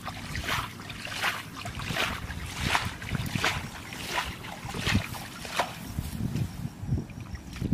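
Hands splashing and sloshing through shallow muddy water while groping along the bottom for fish, in a regular run of splashes about every two-thirds of a second that die down about six seconds in.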